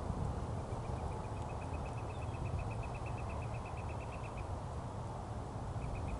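A high, rapid trill of evenly spaced short notes, about nine a second, lasting nearly four seconds and starting again briefly near the end, over a steady low rumble.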